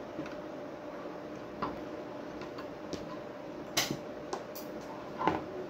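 Scattered small clicks and taps as the amplifier circuit board and its MOSFETs are handled on a workbench, with one sharper knock a little before four seconds in, over a faint steady hum.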